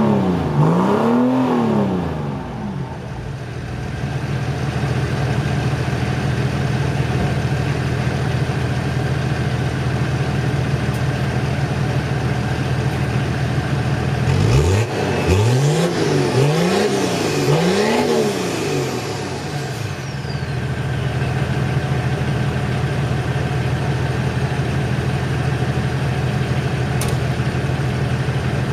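Diesel car engine idling, blipped three times in quick succession about halfway through, then settling back to idle. A high whistle falls in pitch as the revs drop.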